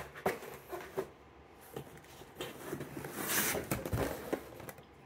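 Cardboard boxes of steaks knocking and scraping against each other and the corrugated shipping carton as they are handled. A few light knocks come in the first two seconds, then a longer scraping rustle about three seconds in as a box is slid up and out.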